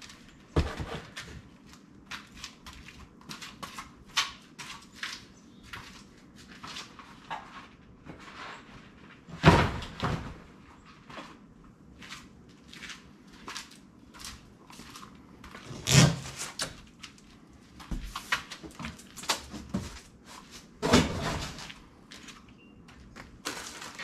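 Cardboard packing being pulled and folded off a steel-framed shipping crate: a steady run of crackles, scrapes and knocks, with three loud thumps about ten, sixteen and twenty-one seconds in.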